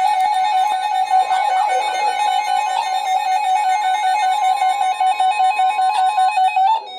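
Weather alert radio's electronic alarm sounding: a loud tone warbling rapidly between two pitches several times a second, signalling an incoming warning. It cuts off just before the end.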